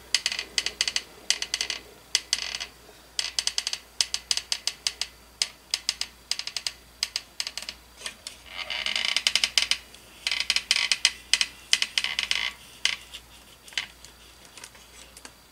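Masking tape being pulled off the roll and pressed down: irregular runs of crackling clicks, with two longer, denser ripping stretches about nine and eleven seconds in, dying away near the end.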